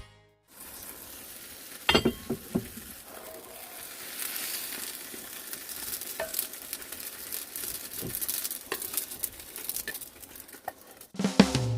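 Food sizzling in a hot frying pan, the sizzle growing stronger about four seconds in, with a few sharp clicks of a utensil against the pan.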